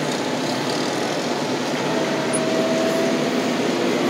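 Wheel loader's diesel engine running steadily as the machine drives, heard from inside the cab, with a brief faint whine about two seconds in.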